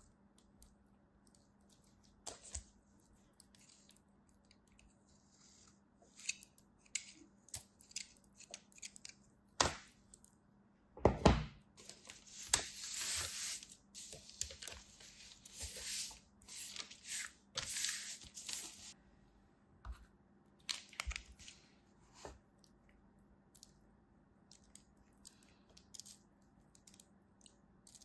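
Kinetic sand crunching and crumbling under fingers in scattered crisp crackles, with one dull thump near the middle and a denser run of crunching just after it.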